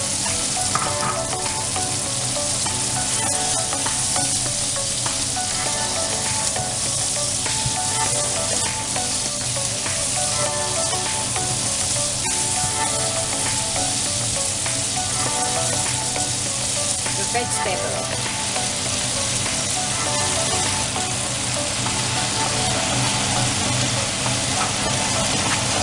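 Prawns, tofu and tomato frying in oil in a nonstick frying pan, sizzling steadily as they are stirred with a spatula; near the end choy sum leaves are in the pan and being turned.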